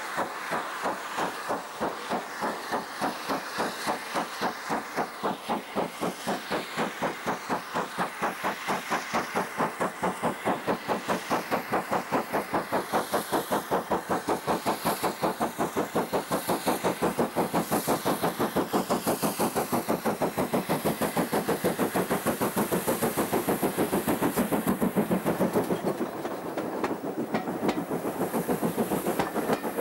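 Steam locomotive working hard on the approach, its exhaust beating in quick, even chuffs that grow louder as it nears. About 26 seconds in it passes, and the coaches follow with wheels clattering over the rail joints.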